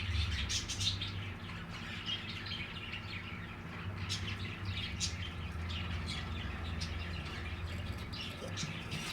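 A flock of budgerigars chirping and chattering in an aviary, many short high calls overlapping, over a steady low hum.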